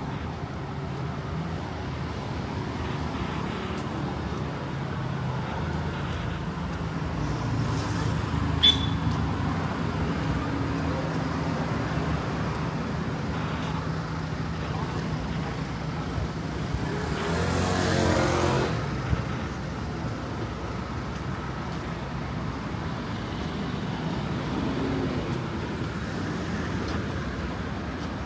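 Busy street traffic with a steady engine hum. One vehicle passes close about eighteen seconds in, and there is a single brief sharp click about nine seconds in.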